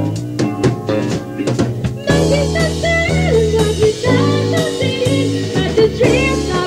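Live band playing an instrumental passage: drums, bass and guitar, with saxophones and keyboard in the seven-piece lineup. The full band comes in louder about two seconds in, with a sustained wavering melody line over the rhythm section.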